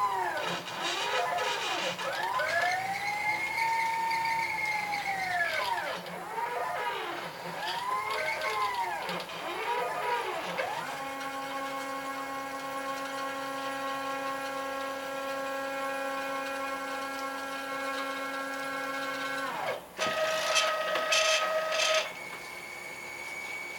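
CNC router's stepper motors whining as the gantry moves: the pitch rises and falls several times as the axes speed up and slow down, then holds a steady whine for about eight seconds before sweeping down. A shorter, higher whine follows near the end.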